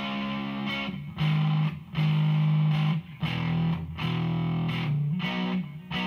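Electric guitar played through a Behringer V-AMP PRO amp modeler on an overdrive preset. It plays distorted chords, each ringing for about a second with short breaks between them.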